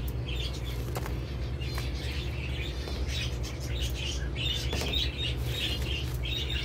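Small birds chirping in quick repeated clusters, over a steady low rumble.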